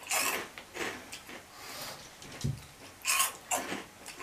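Bite-sized rice crackers with nuts being crunched and chewed, in a series of short crunches; the loudest come about three seconds in.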